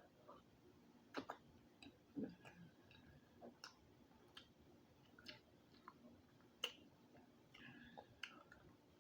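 Faint, scattered mouth clicks and wet smacks of someone chewing a boiled egg close to the microphone, a dozen or so irregular ticks, the loudest a little past halfway.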